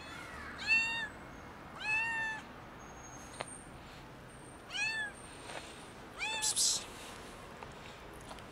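Tuxedo kitten meowing four times in two pairs, each meow rising then falling in pitch.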